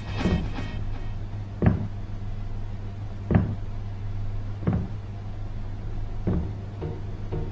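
Steady low electric hum with a deep thud about every one and a half seconds; a fainter ticking rhythm joins in near the end.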